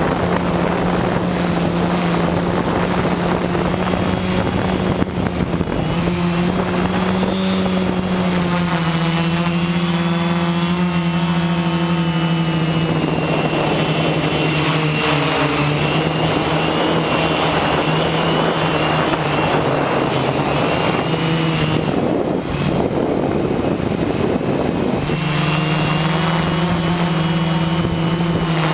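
FPV quadcopter's motors and propellers buzzing, heard from the onboard camera, the pitch shifting as the throttle changes. The tone wavers up and down about ten seconds in, and the steady hum breaks up for a few seconds past twenty-two seconds before settling back.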